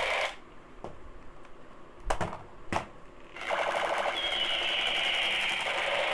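Battery-powered toy projector gun running its firing effect: a rapid mechanical rattle under an electronic tone that falls in pitch. It cuts off just after the start, leaving a few sharp clicks, and starts again about three and a half seconds in.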